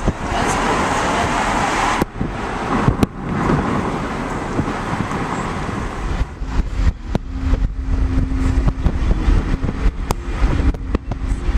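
Car driving along a road, heard from inside with the window open: a steady rumble of tyres and wind. It is a little louder in the first couple of seconds, with a faint steady hum from about halfway and a few sharp clicks.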